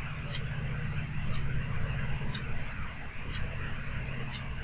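Clock ticking, one sharp tick about every second, over a steady low hum.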